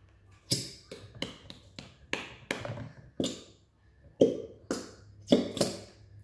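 Plastic squeeze bottle of Elmer's glow-in-the-dark glue being squeezed hard over a plastic bowl, giving about a dozen short, irregular squirts as thick glue and air are forced out of the nozzle.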